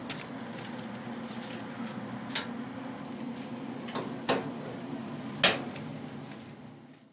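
Standing Swedish Du-class electric locomotive giving a steady low hum, with a few sharp clicks and knocks, the loudest about four and five and a half seconds in. The hum fades out at the very end.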